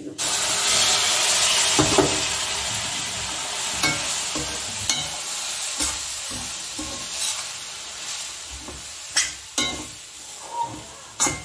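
Hot milk poured into a hot stainless steel kadai of roasted semolina, sugar and grated coconut, sizzling loudly at first and fading over several seconds. A perforated steel ladle stirs and scrapes the mix, clinking sharply against the pan a few times near the end.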